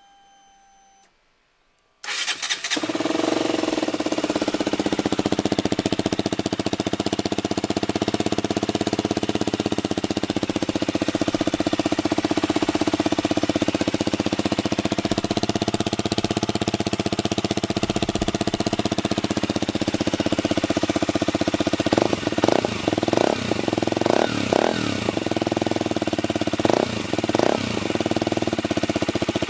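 KTM Duke 125 single-cylinder engine starting about two seconds in and idling steadily through a Radical Racing full exhaust system, then revved in a series of quick blips near the end.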